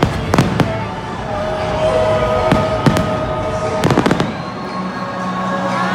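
Fireworks exploding in sharp bangs: a quick cluster at the start, two more around two and a half to three seconds in, and a last cluster about four seconds in, over a steady background din. After that the bangs stop.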